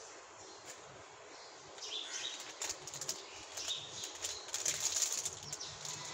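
Plastic chocolate wrapper, a Cadbury Dairy Milk Lolly packet, crinkling as hands handle it; quiet at first, crinkling starts about two seconds in and grows busier toward the end.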